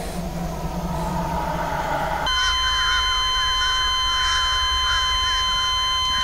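Sound-design soundtrack: a low, grinding, rumbling noise that switches abruptly about two seconds in to a piercing steady electronic tone sounding at several pitches at once, over a warbling texture and a continuing low rumble.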